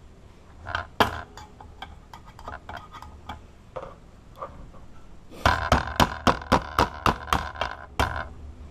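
Metal padlock parts being worked on: scattered clicks and clinks, then a fast run of sharp metallic knocks, about four a second, each with a short ring.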